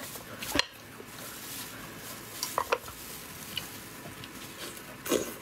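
Plastic-gloved hands handling a cooked sea snail (conch) shell: faint rustling with a few sharp clicks and taps, about half a second in and twice near the middle.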